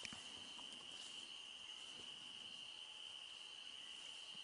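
Faint, steady, high-pitched chorus of night insects, with a small click right at the start.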